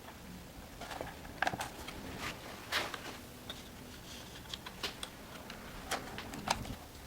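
Irregular light clicks and taps of small chainsaw parts and hand tools being handled during the restoration work.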